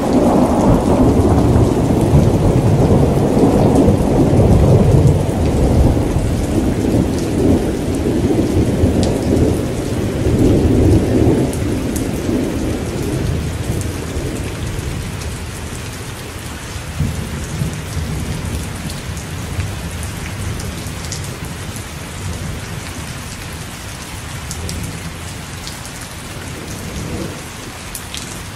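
Thunder rolling for about the first ten seconds, then fading to a distant grumble, over steady heavy rain with scattered raindrop clicks close by.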